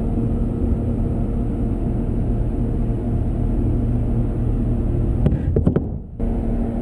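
Steady low rumble with a constant hum in the background. Just after five seconds come a few sharp knocks and a brief dropout as the handheld camera is moved.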